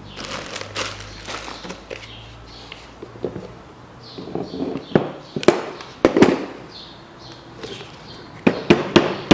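Scattered sharp metallic clicks and knocks from a steel tie rod and a tape measure being handled during measuring, with a quick run of louder clicks near the end.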